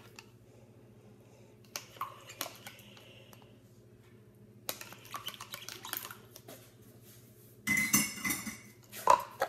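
A spoon stirring and tapping inside a plastic cup, giving scattered light clicks. Near the end comes a louder clatter and shuffle.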